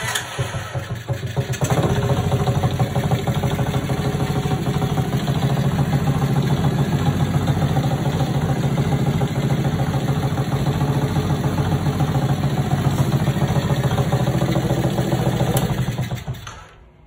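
Small 49cc four-stroke mini chopper engine starting reluctantly, catching about a second and a half in, then running steadily at an even speed before dying away near the end.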